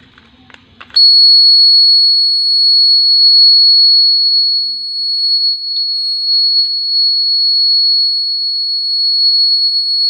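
Piezo buzzer of a homemade 9-volt burglar alarm circuit sounding one loud, steady, high-pitched tone, starting about a second in after a few light clicks: the alarm has been set off.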